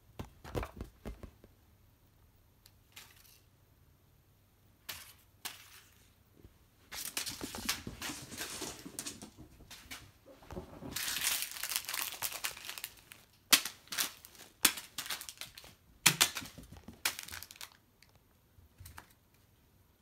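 Small plastic snack packet crinkling and rustling in long stretches, then a quick run of sharp clicks and taps.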